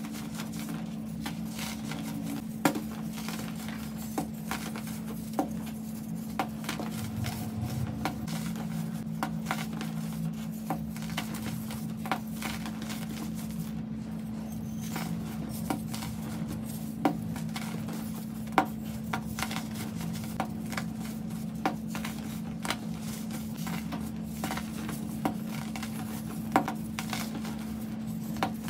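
Hands squeezing and crumbling packed clumps of baking soda: many small crunches with a sharper crack every second or two. A steady low hum runs underneath.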